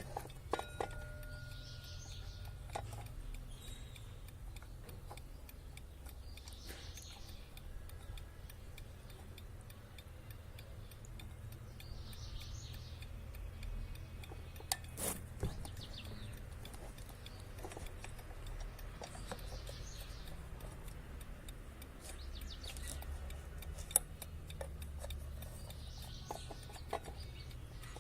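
1960s Peter mechanical alarm clock ticking steadily and faintly, with a few louder clicks.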